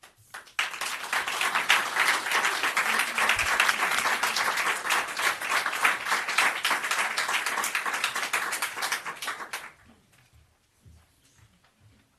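Audience applauding: dense clapping that starts about half a second in and stops abruptly after about nine seconds.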